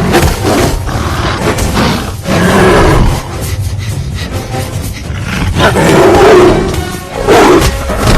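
A tiger and a black panther roaring in a fight, in several loud bursts, over film score music.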